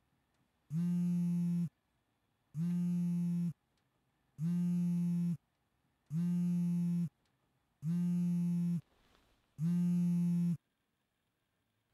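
Electronic alarm clock going off with a low, buzzy beep, repeated six times at an even pace, each beep about a second long with short gaps between.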